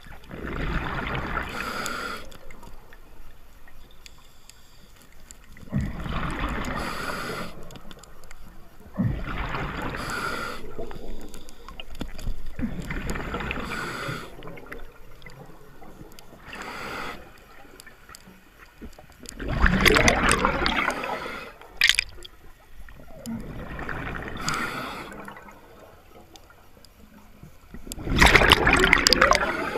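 Scuba diver breathing underwater through a regulator: a regular in-and-out cycle every few seconds, with bursts of exhaled bubbles gurgling past the camera. The loudest bubble bursts come about two-thirds of the way through and at the very end.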